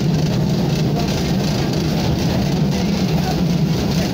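ČSD M262.1 diesel railcar under way, heard from inside the passenger compartment: a steady, loud diesel engine drone mixed with the even rushing of the wheels on the rails.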